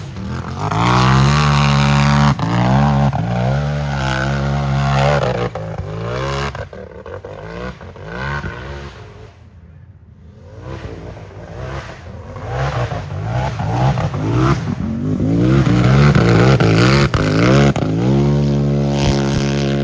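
Unlimited-class race UTV engine revving hard on the course, its pitch climbing and dropping again and again with the throttle. It fades away about halfway, then builds back up loud.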